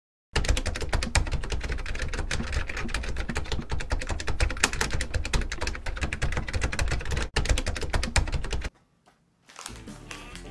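Rapid typing sound effect, a fast clatter of typewriter-style key clicks that runs for about eight seconds and stops abruptly. After a brief silence, soft background music begins near the end.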